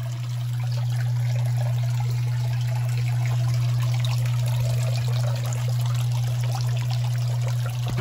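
Water pouring and trickling from a plastic bag into a pond as a bag of goldfish fry is emptied, over a steady low hum.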